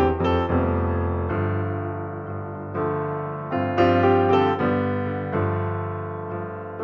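Slow, calm piano music: soft chords struck and left to ring, with a short run of quicker notes about four seconds in.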